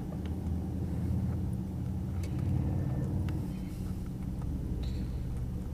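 Steady low engine drone, with a few faint ticks over it.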